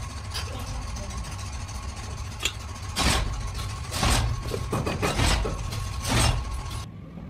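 Steady low machine hum, like a motor running, with four louder short scraping noises about a second apart as brush parts are worked by hand. The hum cuts off suddenly near the end.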